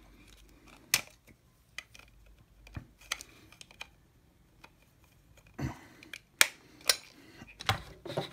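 Hard plastic parts of a Power Rangers Dino Fury zord toy clicking and clacking as they are handled and fitted together by hand: scattered, irregular clicks, with a small cluster about five and a half to seven seconds in.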